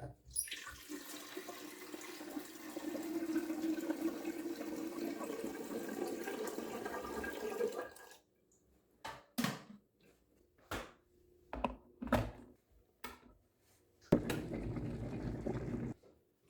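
Water running from a tap into a container for about eight seconds, rising slightly in pitch as it fills. A few short knocks follow, then the water runs again for about two seconds near the end.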